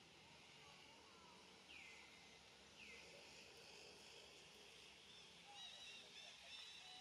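Faint outdoor ambience with small birds calling: two calls that sweep down in pitch about two and three seconds in, then a run of quick high chirps in the second half.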